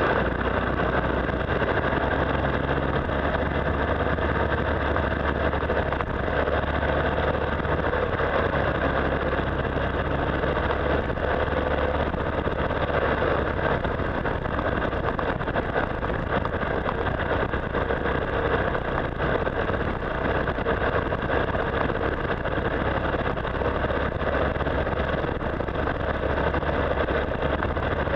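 Motorcycle engine running steadily at road speed, with wind and road noise on the bike-mounted microphone.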